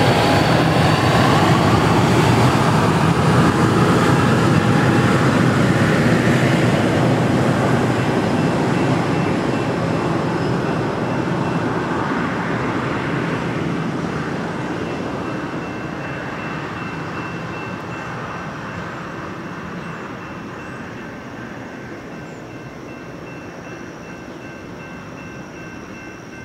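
VIA Rail Siemens Venture passenger train pulling away, its wheels rolling on the rails. The sound is loud for the first few seconds, then fades steadily as the train recedes. From about a third of the way in, a level-crossing bell rings faintly in the background.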